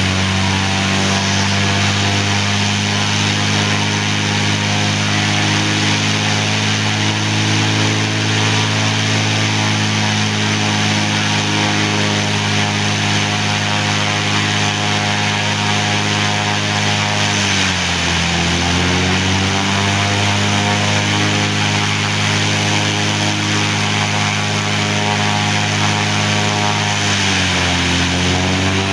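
Cessna 206's six-cylinder piston engine and propeller running at steady run-up power with the aircraft standing still. The engine speed dips briefly and recovers twice, about two-thirds of the way through and again near the end, as in the checks of a pre-flight engine run-up.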